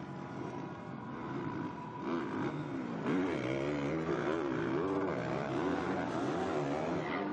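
Motocross race bike engines revving hard and backing off over and over, the pitch rising and falling as riders race through the corners and jumps. The engines get louder about three seconds in.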